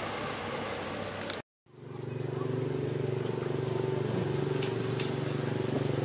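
A steady rushing noise, cut off abruptly about a second and a half in, then a small engine running steadily at a constant pitch with a fast, even pulse.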